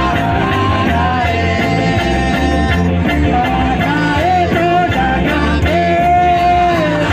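Loud dance music with a singing voice over a steady bass beat.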